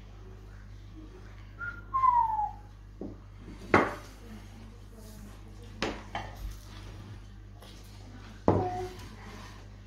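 A short high note, then a whistle-like tone gliding downward about two seconds in, followed by three sharp knocks a couple of seconds apart, like dishes or utensils being knocked or set down.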